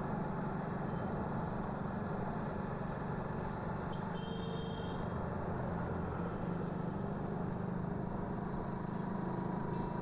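Motorcycle engine running steadily at low road speed, a constant hum under road and street traffic noise.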